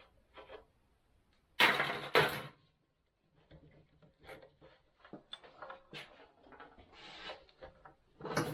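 Clatter and knocks of tools and parts being handled during a motorcycle teardown: two loud clatters about a second and a half in, then lighter clicks and taps, and another clatter near the end.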